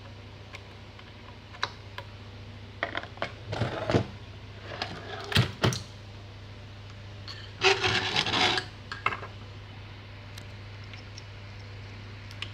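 Clicks, clinks and rattles of metal parts and tools being handled while an active subwoofer amplifier is taken apart, in three short clusters about 3, 5 and 8 seconds in. A steady low hum sounds throughout.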